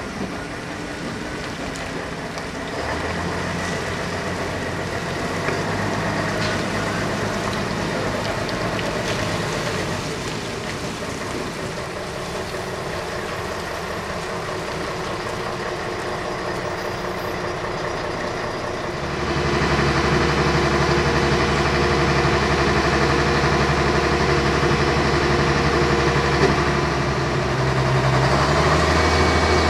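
Diesel engine of a multi-axle mobile truck crane running steadily as the crane drives slowly. About two-thirds of the way through, the sound jumps to a louder, deeper diesel idling steadily, with a Class 03 diesel shunter's Gardner engine running.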